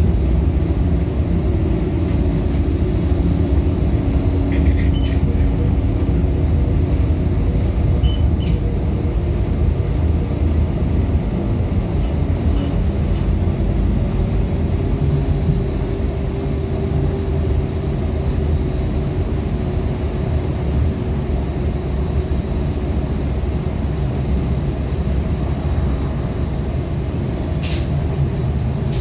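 Inside an LVS-97K tram under way: a steady running rumble of wheels on rails, with a hum whose pitch shifts now and then. A few brief clicks come about five and eight seconds in and again near the end.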